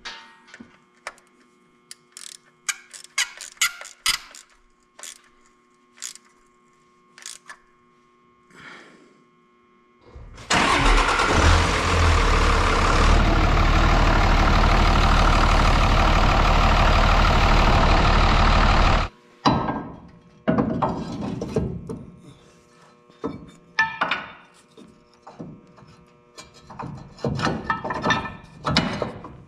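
Scattered clicks and taps of a ratchet on engine-bay fittings, then the Dodge pickup's turbodiesel engine starts up and runs steadily and loud for about eight seconds before cutting off suddenly. Scattered clanks of metal parts being handled follow.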